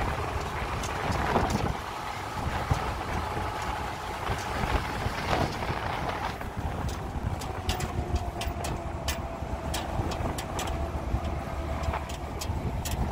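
Moving vehicle running on the road: a steady engine and road rumble with a faint engine whine that slowly drops in pitch, and scattered light rattles and clicks.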